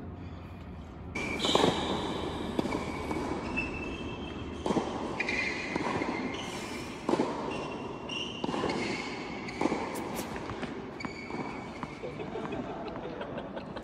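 Tennis racket striking balls on serves: sharp hits about every two and a half seconds, echoing under a large dome roof.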